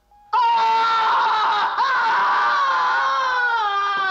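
A man's loud, long scream of agony that starts a moment in, wavers and slowly sinks in pitch.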